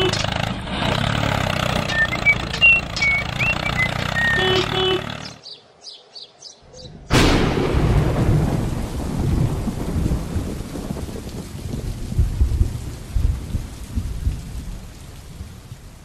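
A tractor engine runs for about the first five seconds, with a few short high chirps over it, and then drops away. About seven seconds in, a thunderclap breaks suddenly, followed by rolling thunder and falling rain.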